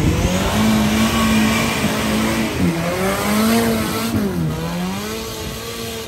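Off-road vehicle's engine revving hard under load, its pitch climbing at the start, dipping twice and climbing again, then falling away at the end, over a steady rushing noise.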